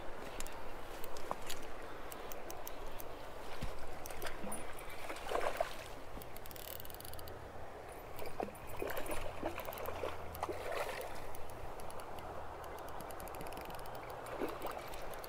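Shallow river water splashing and gurgling at the bank's edge as a hooked smallmouth bass is brought in to be landed by hand, with a few irregular louder splashes.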